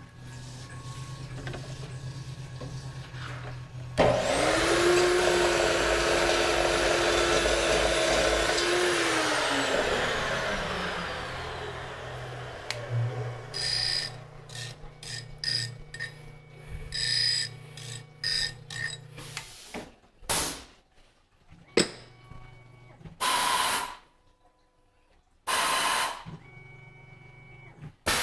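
Tormach PCNC 1100 CNC mill: the spindle starts suddenly with a rising whine, runs steadily for about five seconds, then winds down with a falling pitch. This is followed by a string of clicks and short hisses, with two longer bursts near the end, as the automatic tool changer swings in to swap tools.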